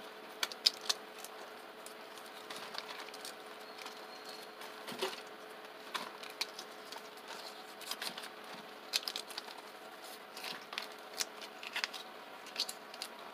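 Fresh green pea pods being split open by hand and shelled into a stainless steel bowl: irregular small snaps and clicks as pods crack and peas and pods knock against each other and the bowl.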